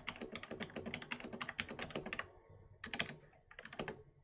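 Computer keyboard typing: a fast, even run of keystrokes for about two seconds, then two short flurries of keys near the end, as a row of numbers is entered.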